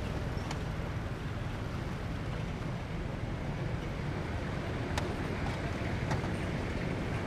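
Wind buffeting the microphone as a steady low rumble, with a few faint clicks about half a second in and again near five and six seconds in.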